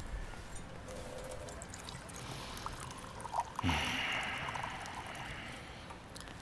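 Water from a kitchen tap running into a drinking glass. It starts suddenly a little past halfway, after a few faint clinks, and the splashing grows gradually quieter toward the end.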